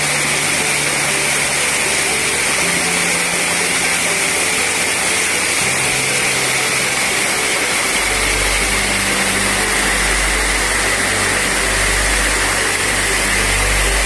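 Small waterfall pouring over rocks: a steady, loud rush of splashing water. Low held music notes sit underneath, with a pulsing bass from about eight seconds in.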